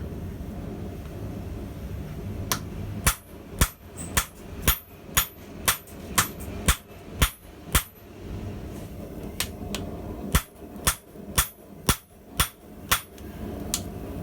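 Hand hammer blows on hot 1050 medium carbon steel on an anvil, a slow, even tempo of about two blows a second, starting a couple of seconds in and pausing briefly in the middle. A steady low rumble runs underneath.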